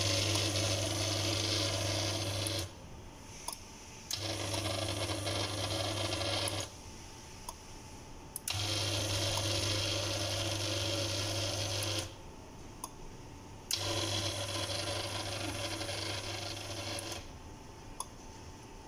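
Sliding gate opener's electric motor and gearbox running four times in short runs of about three seconds, with a steady hum and a gear whir. A sharp click marks the start of each run, and there are faint clicks in the pauses between.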